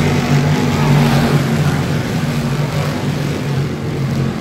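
Race car engines running with a steady, loud drone.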